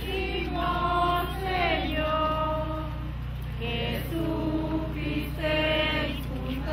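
A group of people singing a slow hymn together in long held notes, phrase after phrase with short breaks, over a steady low hum.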